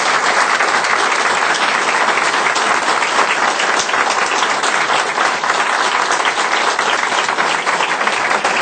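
Audience applauding: steady, dense clapping from many people.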